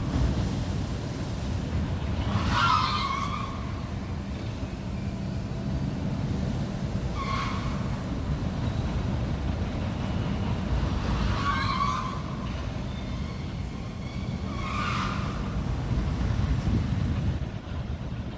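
A docked cruise ship's hull rubbing against the plastic fenders on the pier as waves lift and drop it, giving four drawn-out squeals about four seconds apart over a steady low rumble.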